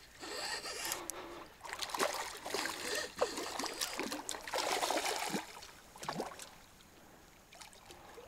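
Water splashing at the surface in irregular bursts as a small hooked carp thrashes on the line; the splashing dies down after about six seconds.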